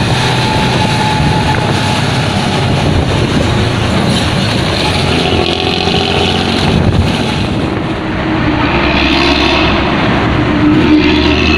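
Diesel bus engine running loud through a 'ngorok' (snoring) exhaust, a deep, raspy rumble. The sound dips briefly about eight seconds in, then picks up again with a clearer, higher engine note.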